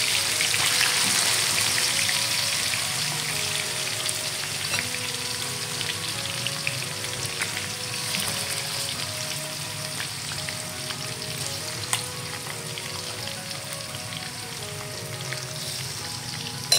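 Turmeric-spiced chicken pieces frying in a little hot oil in a wok: a steady sizzle with scattered crackles, loudest at first and slowly quieting, with one sharp pop about twelve seconds in.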